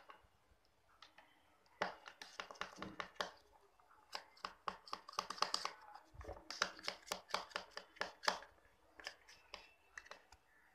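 Plastic spoon stirring a glue mixture in a plastic bowl: a fast, uneven run of faint scrapes and clicks against the bowl. It starts about two seconds in and thins out near the end.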